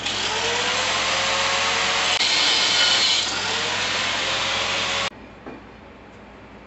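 Handheld abrasive cut-off wheel cutting through a 1-inch cold-rolled steel shaft, a loud steady grinding whose pitch twice sags and climbs back, stopping abruptly about five seconds in.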